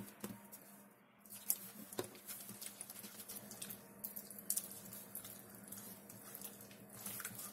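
A hand squishing and patting wet flour batter in a glass bowl: faint, irregular wet pats and clicks.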